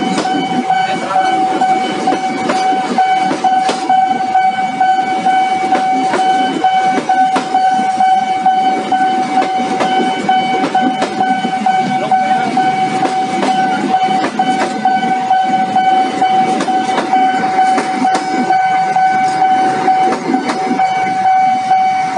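Train of passenger coaches passing fast over a level crossing: a dense rumble with wheels clattering over the rail joints. A steady high-pitched tone with overtones sounds throughout, from the level-crossing warning signal.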